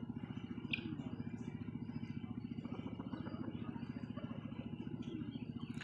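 A small engine running steadily with a fast, even pulse, with faint, high bird chirps over it.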